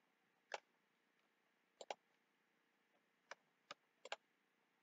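Computer mouse clicking: about seven short, sharp clicks against near silence, two of them in quick pairs.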